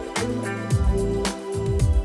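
Background music with a steady beat: a deep kick drum with pitched notes over it.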